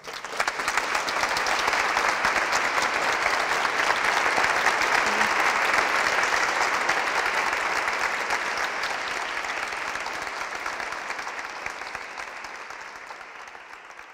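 Audience applause breaking out suddenly at the end of a poem, swelling over the first couple of seconds, then slowly dying away over the last few seconds.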